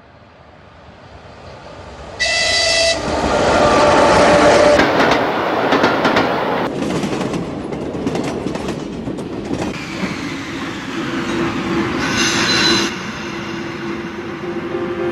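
Passenger train running on the rails, its rumble and wheel clatter swelling as it draws near. Its horn sounds twice, briefly: about two seconds in and again near twelve seconds.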